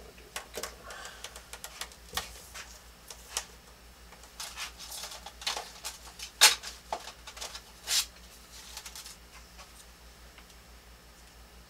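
Scattered clicks, taps and light rustles of objects being handled on a drafting table, irregular and with no steady rhythm, the two loudest taps about six and a half and eight seconds in, then quieter.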